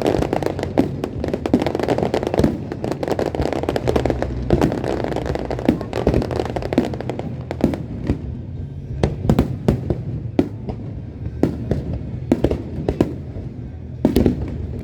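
Fireworks show: a rapid series of sharp bangs and crackling bursts, densest in the first half and sparser, separate bangs later, with music playing underneath.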